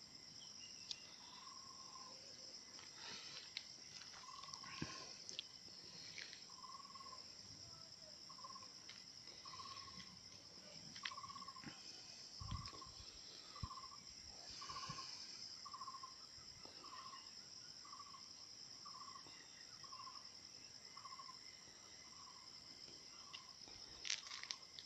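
Faint, steady high-pitched drone of insects, with a short call repeated over and over from about a couple of seconds in, its notes coming closer together to about two a second. A few light clicks and knocks, one louder near the end.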